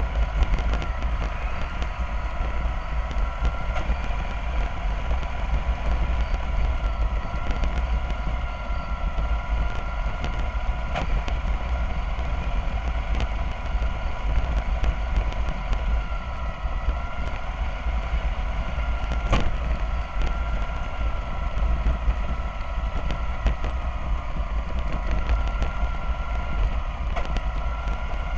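Alexander Dennis Enviro400 double-decker bus heard from inside while under way: a steady deep engine rumble with a whine above it that wavers up and down in pitch. There is one sharp click about two-thirds of the way through.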